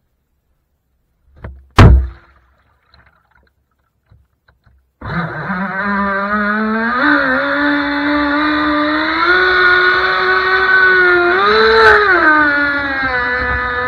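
A single sharp knock about two seconds in, then, after near silence, the Sonicwake 36 RC boat's brushless electric motor starts abruptly about five seconds in, recorded on board: a steady whine with several overtones that rises in pitch around seven seconds and again near twelve, then drops back.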